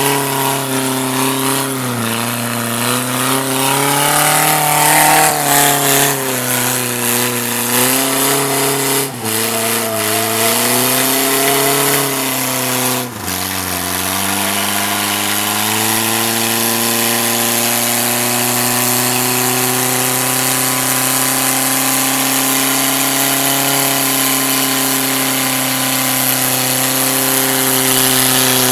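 Toyota 22R four-cylinder engine revving hard in a burnout, its rear tyres spinning in smoke. For the first thirteen seconds the revs rise and fall, with a sudden drop at about nine seconds and again at about thirteen. After that the engine is held at high, steady revs under a constant hiss.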